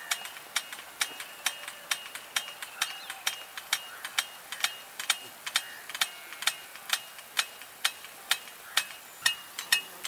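Impact-type rain gun sprinkler ticking as its swing arm strikes the water jet and steps the gun round, about four sharp clicks a second over a steady hiss.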